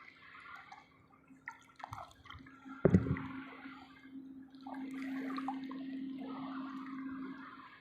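Water splashing and dripping at the water's edge, with a sharp knock about three seconds in and a faint steady hum through the second half.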